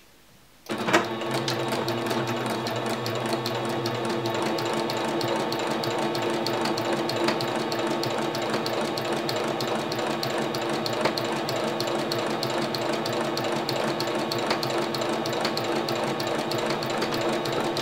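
Singer electric sewing machine starting about a second in and then running steadily, sewing a straight stitch through cotton quilt pieces: a motor hum with a rapid, even ticking of the needle.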